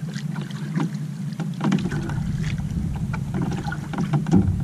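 Wind rumbling on the microphone and water lapping against an outrigger canoe's hull, with scattered light clicks and knocks. The rumble deepens about two seconds in.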